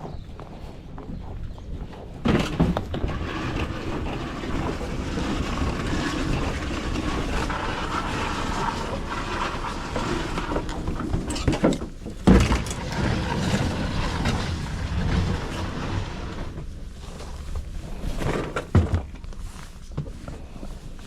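Fishing boat under way: a low engine rumble under rushing wind and water noise, with a few sharp knocks on the hull or deck.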